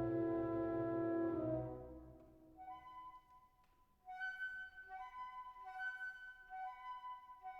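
Instrumental background music: a held, full chord fades out in the first two seconds, then after a short lull a simple melody of held notes begins.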